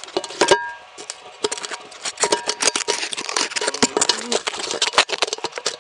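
Handling noise: dense, irregular clicking and clattering of hard objects knocking together as the camera is moved about and set down.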